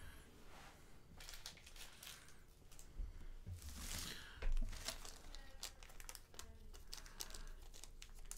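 Plastic packaging crinkling and rustling in the hands as small parts are unwrapped. It comes as irregular crackles and is loudest about four seconds in.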